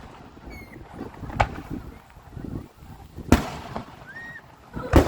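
Fireworks shells bursting: three sharp bangs, about a second and a half to two seconds apart, the loudest a little past three seconds in, over a low background rumble.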